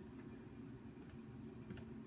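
Quiet room tone with a faint low hum and a couple of faint small clicks.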